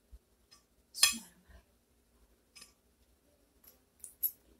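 Metal spoon and fork clinking against a ceramic plate: one sharp clink about a second in, then a few light taps.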